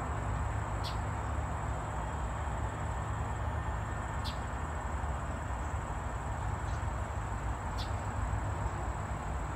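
Outdoor ambience: a steady low rumble, like distant traffic, under a thin, constant high-pitched tone, with a short high chirp about every three and a half seconds, three times.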